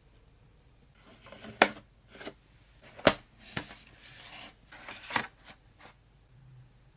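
Handling noises from parts being worked on during a PC build: several sharp clicks and knocks with rustling between them, the loudest about one and a half, three and five seconds in.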